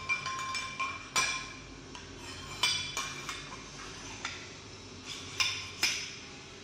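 Steel parts for a homemade drill press (flat bars, a toothed rack on a tube, a long shaft) clinking and knocking together as they are handled. The sharp metallic clinks come irregularly, the first few ringing briefly.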